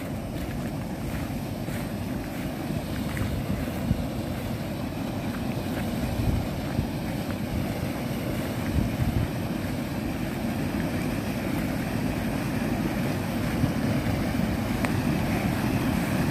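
Water pouring through the open gates of a concrete irrigation weir into the canal below: a steady rushing that grows gradually louder.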